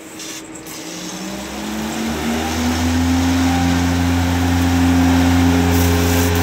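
Marshall Twinturn UBER twin-spindle CNC lathe running: a steady low hum, with a whine that rises in pitch over the first couple of seconds as the spindle runs up, then holds steady. Coolant spray hisses over it, and the whole sound grows louder before levelling off.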